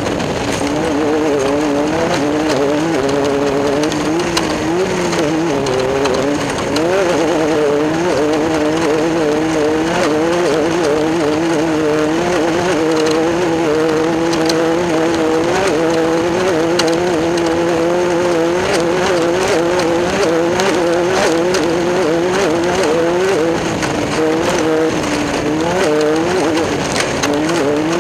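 Class 10 off-road race car's engine running hard and continuously, its pitch rising and dipping every second or so with throttle and terrain, over frequent short knocks and rattles.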